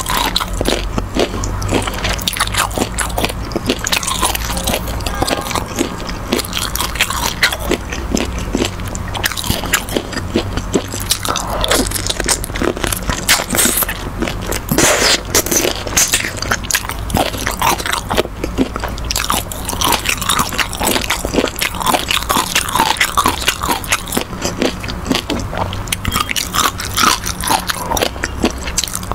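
Close-miked biting and chewing of spicy braised chicken feet and chewy braised strips: a steady run of wet mouth clicks and smacks with some crunches.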